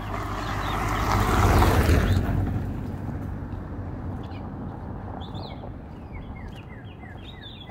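A car driving past, its tyre and engine noise swelling to a peak about two seconds in and fading away. Afterwards birds chirp repeatedly with short falling calls.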